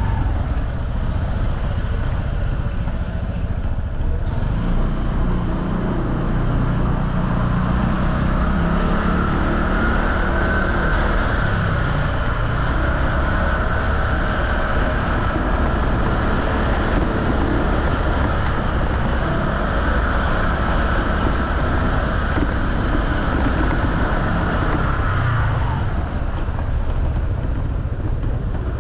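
Motorcycle riding along a road, heard from on board: a steady drone of engine and road noise.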